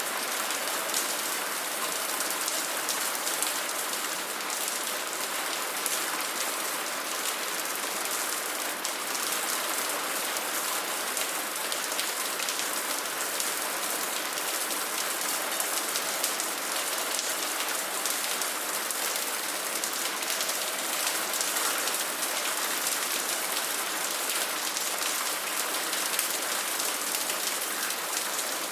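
Steady rain falling, a dense, even hiss of drops pattering on a surface.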